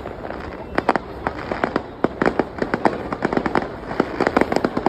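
Fireworks display going off: many sharp bangs and pops in quick, irregular clusters over a steady background rumble.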